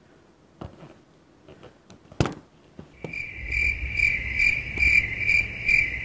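Rhythmic insect-like chirping, like a cricket's: one high pitch pulsing about two and a half times a second. It starts about three seconds in over a low rumble, after a single sharp click a little past two seconds in.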